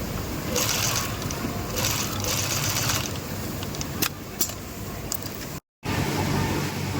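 Industrial sewing machine running: a steady motor hum with bursts of hissing noise and two sharp clicks about four seconds in. The sound cuts out completely for a moment near the end.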